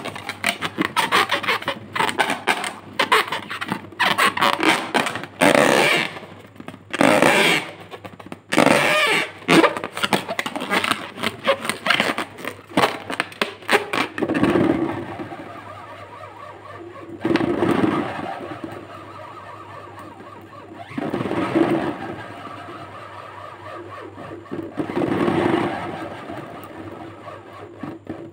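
Hands rubbing and squeezing an inflated latex balloon: quick, close-together rubbing squeaks for the first half, then four longer, lower squeaks spaced a few seconds apart.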